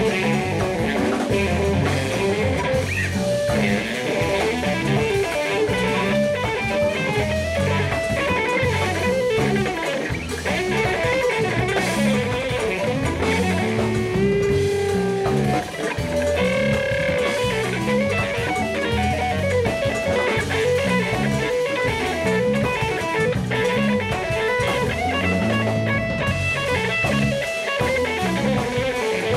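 Live jazz-funk band playing an instrumental groove: electric guitar over bass and a drum kit, with no vocals.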